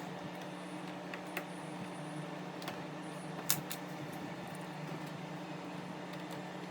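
Steady low hum with a few faint, scattered light clicks, typical of small screws and a screwdriver working the bottom cover back onto a MacBook Pro.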